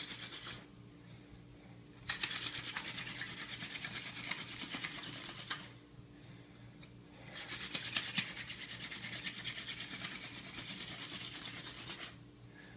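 Hand drill friction fire: a mullein spindle spun between the palms, grinding into a willow hearth board with a rapid dry rubbing hiss. It comes in runs of a few seconds, broken by short pauses of about a second and a half as the hands shift back up the spindle. He is pressing harder now to heat the dust in the notch into an ember.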